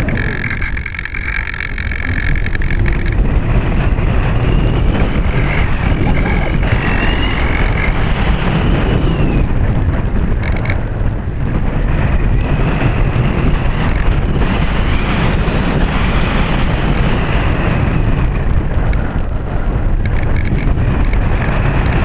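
Heavy wind buffeting the onboard camera microphone of an Art-Tech Diamond 2500 electric RC glider in flight. A faint high whine, the electric motor's, rises and falls in pitch now and then.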